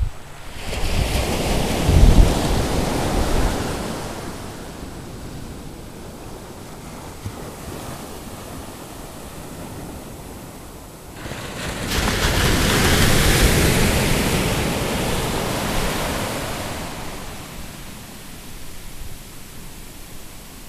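Ocean surf breaking on a beach: two big waves about ten seconds apart, each swelling up and then washing out over several seconds.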